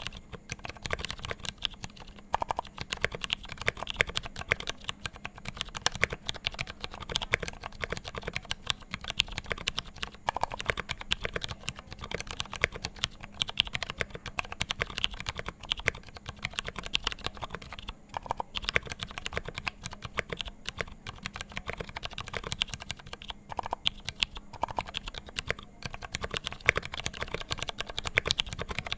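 Continuous fast typing on a custom 60% mechanical keyboard (H360) with lubed Ergo Clear switches on 65 g gold springs with films, under GMK Nautilus keycaps: a steady stream of key clacks with occasional louder strokes. A faint steady hum runs underneath.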